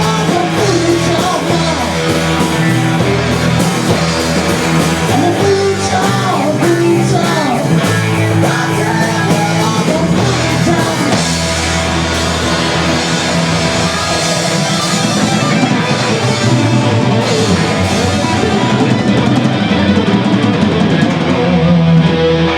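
Rock music: electric guitar and drum kit with some singing, playing steadily and loud.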